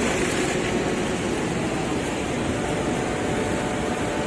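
Heavy construction machinery running steadily, a constant engine drone with a faint hum and no breaks.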